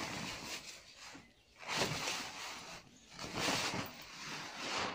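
Cloth and a woven plastic sack rustling and crinkling as they are handled, in three bursts of about a second each.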